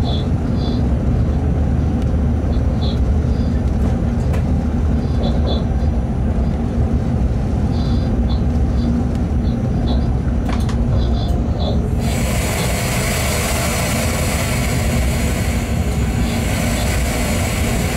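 Freight train running on the track, heard from the cab: a steady low rumble with a hum, and short high chirps recurring in small groups. About twelve seconds in, a loud steady hiss sets in suddenly.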